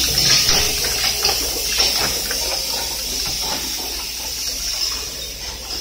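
Rotary child-resistant cap assembly and wadding machine running: a steady high hiss under rapid, irregular clicking of caps and tooling, the clicks thinning out about halfway through.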